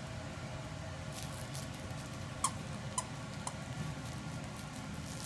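Squeaky dog toy squeaking three times, about half a second apart, as the whippet puppies bite it, over a steady low background hum.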